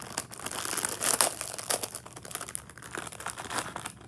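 Crinkly plastic wrapper of a Hot Wheels Mystery Models blind package being crumpled and torn open by hand, in dense irregular crackles, loudest about a second in.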